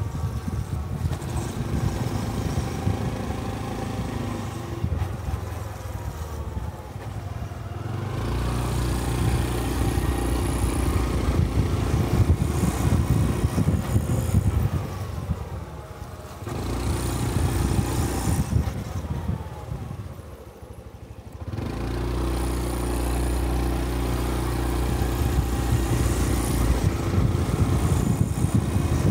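Honda Cub 125 cc single-cylinder motorcycle engine and exhaust while riding, the note rising and falling with the throttle. It drops to a quieter, lower level around twenty seconds in, then picks up again.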